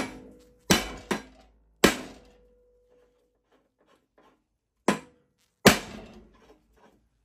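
Hammer blows on a nut threaded onto the end of a lawn tractor's mower deck spindle, driving the spindle out of its old bearings: about six sharp strikes in two groups with a pause between, and a faint metallic ring lingering after the first blows.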